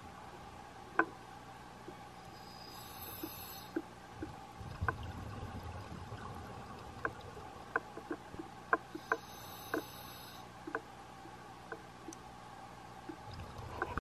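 Underwater sound of a scuba diver breathing through a regulator: a hiss about three seconds in and again around nine to ten seconds, with low bubbly rumbles of exhaled air at about five seconds and near the end. Scattered sharp clicks and a steady faint hum run underneath.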